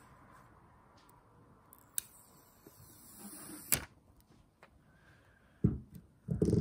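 Handling noise from a Nebula Apollo pocket projector turned over in the hands: two sharp clicks with a brief rubbing hiss between them, then a few dull knocks near the end as it is stood on a wooden table.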